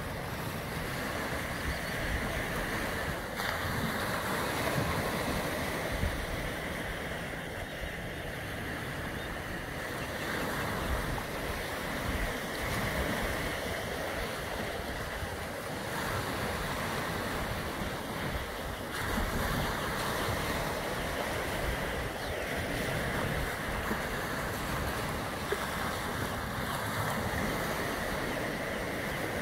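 Small sea waves breaking and washing over rocks at the shoreline: a steady wash of surf with no sharp crashes.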